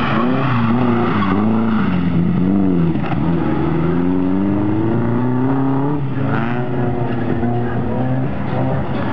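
Car engine revving up and down again and again as it is driven hard through a cone slalom, the pitch climbing and dropping every second or two.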